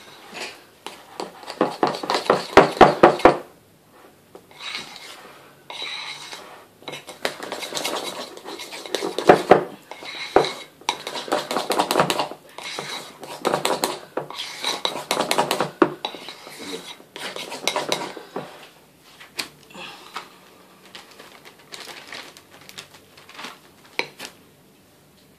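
A metal utensil stirring thick buttercream icing in a ceramic bowl, clinking and scraping against the bowl's sides in repeated bursts. The fastest, loudest run of clinks comes about two to three seconds in, and the strokes grow sparser near the end.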